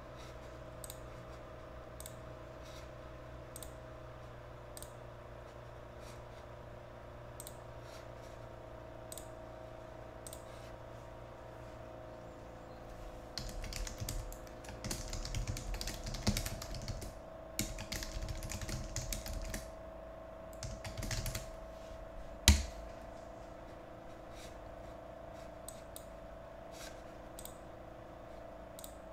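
Scattered sharp clicks over a steady electrical hum, then about ten seconds of busier clicking and handling noise, like typing at a keyboard. The busy stretch ends with a single sharp knock.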